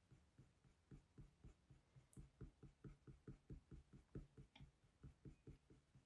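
Graphite pencil (4B) flicking short, quick strokes across smooth hot-pressed drawing paper, drawing fur hairs: faint, rhythmic scratches at about four a second, starting about a second in.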